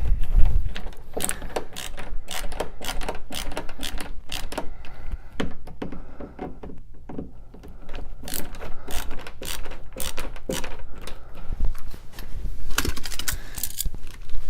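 Rapid, irregular clicks and taps of a wall plate and light switch being handled and shifted into line, thinning out briefly about halfway through.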